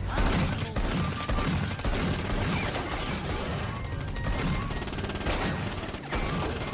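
A rapid string of bangs and crackling pops from an explosion that throws out showers of sparks, with film score underneath.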